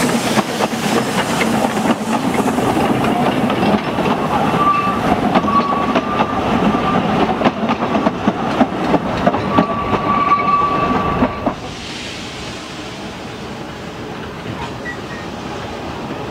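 A narrow-gauge steam train passing close by: the locomotive and its wooden coaches run over the rails with a dense clicking of wheels, and two brief high squeals are heard. About eleven seconds in, the sound drops suddenly to a quieter, more distant train running.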